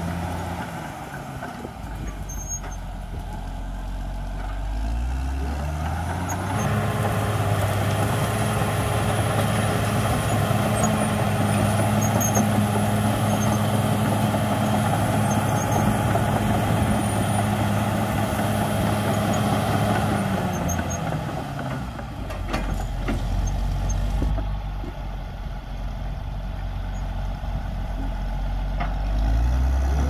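Caterpillar D6R XL bulldozer's diesel engine rising from a low idle to a steady working pitch about six seconds in, with a thin high whine while it is up. It holds for about fifteen seconds, drops back near idle, then climbs again near the end.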